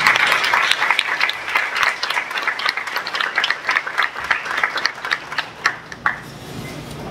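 Audience applause, many people clapping, thinning out after about five seconds to a few last claps.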